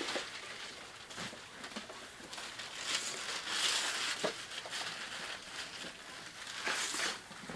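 Gift wrapping paper and packaging crinkling and rustling in irregular handfuls as a present is torn open, louder in the middle and again near the end, with a few small clicks.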